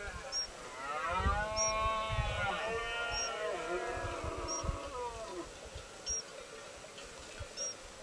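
Red deer stags roaring in the rut: three or so long bellows that rise and fall in pitch, overlapping in the first half and dying away about five and a half seconds in. A faint short high chirp repeats about every second and a half.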